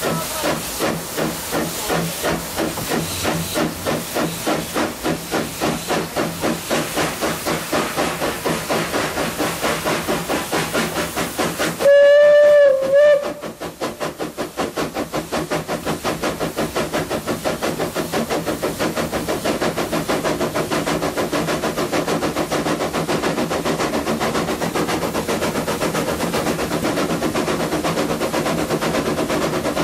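Narrow-gauge ÖBB class 298 steam locomotive working hard, its exhaust chuffing in an even rhythm that quickens. About twelve seconds in, the steam whistle gives one long blast and then a short toot, the loudest sound here.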